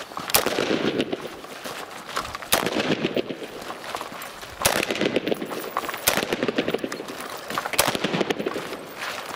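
Five single gunshots from a shooter working through a drill, spaced about one and a half to two seconds apart. Each shot is a sharp crack followed by a noisy tail that dies away over a second or so.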